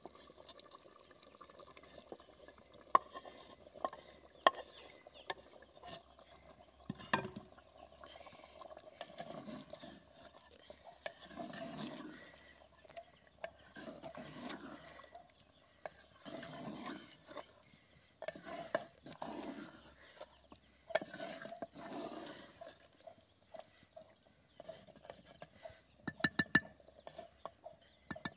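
Cauliflower, capsicum and half-boiled potato in liquid being stirred with a wooden spoon in a clay pot: regular wet swishing strokes, about one every second and a half, through the middle. Sharp knocks of the vegetables and spoon against the pot come before and after the strokes.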